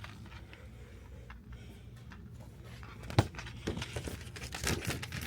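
Gift bags and merchandise being handled: rustling and crinkling, with a sharp click about three seconds in and scattered clicks after it, over a steady low hum.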